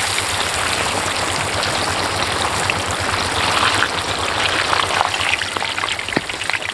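A large piece of marinated fish deep-frying in very hot oil in a big iron karahi: a steady sizzle and crackle of bubbling oil.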